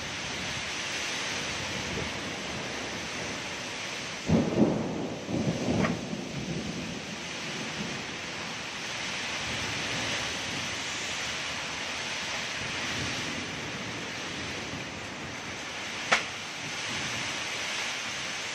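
Heavy rain falling steadily in a strong wind, a continuous hiss. About four to six seconds in comes a loud, low rumbling burst, and near the end a single sharp click.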